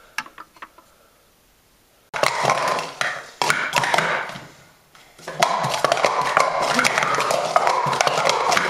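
Plastic sport-stacking cups being stacked up and down at speed on a mat: from about five seconds in, a dense, unbroken clatter of quick clicks and taps as cups knock against each other and the mat.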